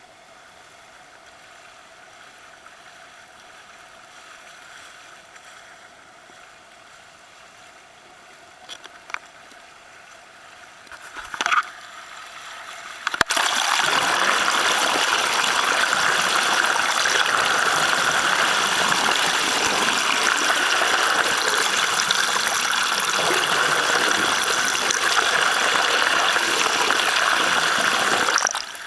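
Faint steady water noise with a few brief knocks, then about halfway through a sudden jump to a loud, steady rushing hiss: water flowing over a camera held under the surface.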